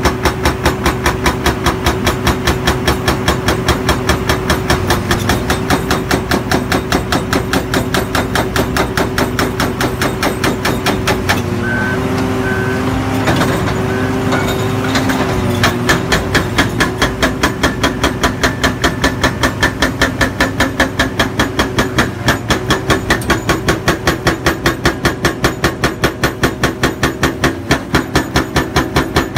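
NPK GH-18 nitrogen-gas-charged hydraulic breaker on an excavator hammering reinforced concrete at about three blows a second, over the steady drone of the excavator's engine and hydraulics. For a few seconds near the middle the blows run together and a higher whine comes through.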